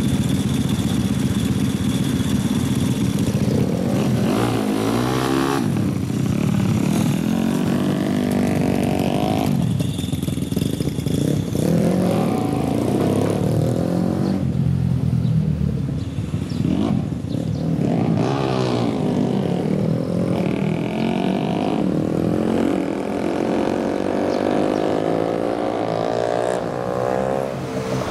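Small single-cylinder four-stroke engine of a custom Honda Monkey motorcycle, steady at idle for the first few seconds, then revving and pulling away, its pitch rising through the gears and dropping back several times.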